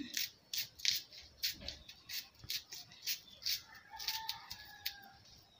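A kitchen knife cutting and scraping the skin off a slice of raw yam in a quick run of short, irregular strokes. A faint, drawn-out call sounds in the background about four seconds in.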